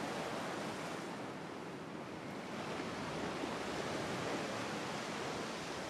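Sea surf washing steadily against a rocky shore, an even rush of wave noise.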